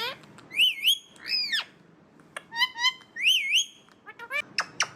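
Alexandrine parakeet whistling and calling: a wavy whistled phrase given twice, about two and a half seconds apart, with a loud arching call and short chirps between.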